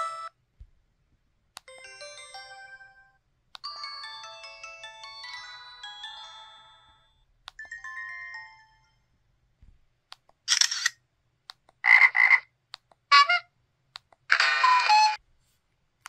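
LG SV280 Cyon slider phone system sound effects playing one after another: three short beeping jingles in the first half, then four short, harsher buzzy effects in the second half.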